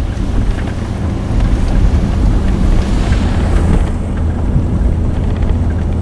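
Vehicle engine running as it drives through deep snow, under steady wind noise buffeting the microphone.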